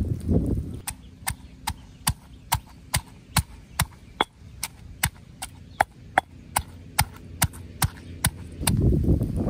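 Steady chopping with a blade, about two sharp strokes a second, starting about a second in and stopping about a second before the end.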